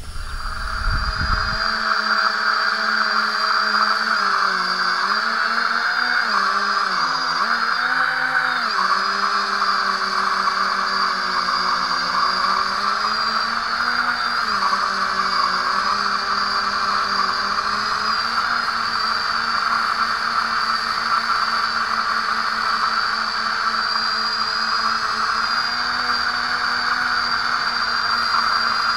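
Small quadcopter's brushless motors and propellers whining steadily as heard from its onboard camera, the pitch wavering up and down with throttle changes a few seconds in, then holding steady. A low wind rumble on the microphone at the very start.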